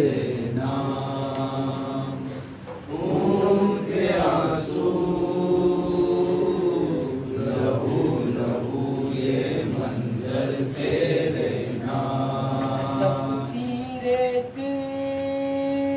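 Men's voices chanting a noha, a Shia mourning lament, unaccompanied, in slow sung phrases. Near the end they hold one long note.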